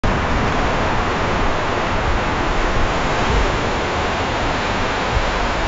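Loud, steady rush of tornado-force wind around a car, heard from inside the cabin, with a heavy low rumble of buffeting.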